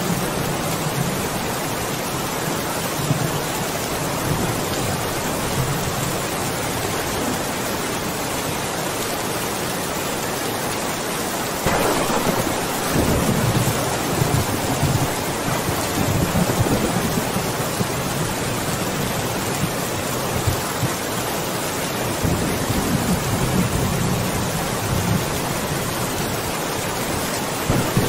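Steady rain falling, with thunder: a sudden crack a little before halfway, followed by low rumbling, and another spell of rumbling later on.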